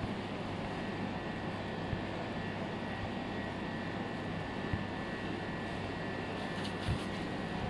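Steady low machine hum with a thin, even high whine above it, and a few soft knocks now and then.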